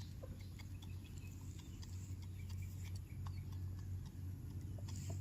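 A steady low hum with faint, scattered ticks and clicks over it.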